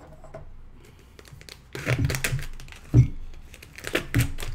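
A cardboard filament box being torn open by hand, with ripping and crinkling that start about two seconds in. A sharp knock about three seconds in is the loudest sound, and a smaller one follows about a second later.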